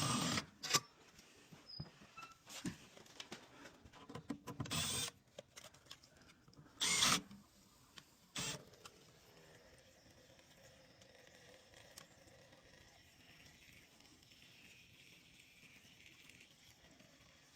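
Handling noise from opening up an HVAC unit: several short knocks and scrapes in the first nine seconds, then only a faint hiss.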